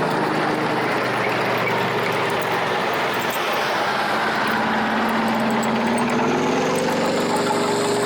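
Military armoured vehicle engine running loud and steady, its pitch rising from about four and a half seconds in as the vehicle speeds up.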